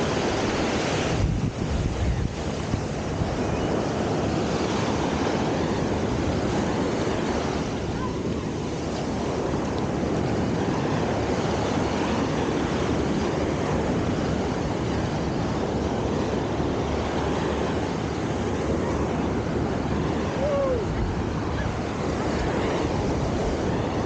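Small surf breaking and washing up a sandy beach, with wind blowing across the microphone.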